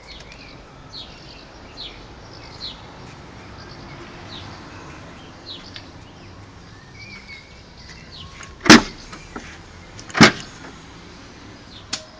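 Two sharp latch clunks about a second and a half apart, then a lighter click near the end, as the Mini Clubman's split rear barn doors are unlatched and opened. Birds chirp faintly throughout.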